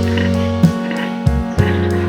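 Background music with plucked guitar and a bass line in a steady rhythm.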